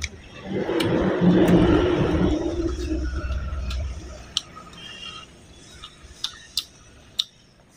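A loud low rumble with a rushing noise for about three and a half seconds, then a few sharp clicks.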